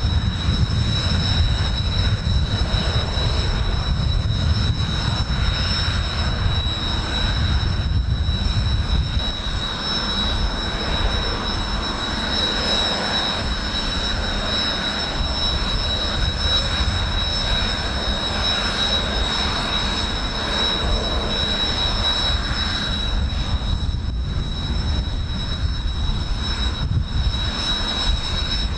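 Kawasaki T-4 jet trainers' turbofan engines running with a steady high whine over a broad rush of engine noise. Gusty wind buffets the microphone with a low rumble, heaviest in the first nine seconds or so.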